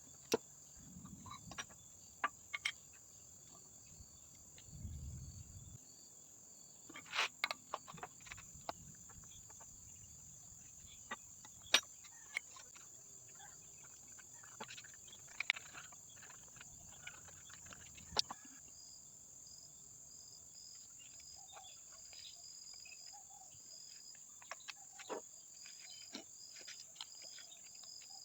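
Insects chirring in a steady high drone, with a softer chirp coming and going. Scattered sharp clicks and taps from handling and working on the job sound over it, with a few small clusters.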